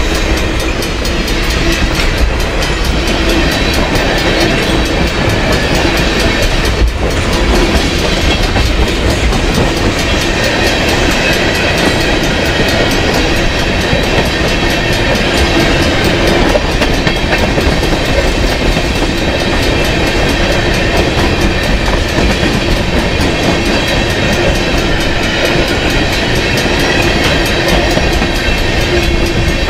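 Freight train tank cars rolling past close by: a steady, loud rumble of steel wheels on the rail with a clickety-clack from the wheels.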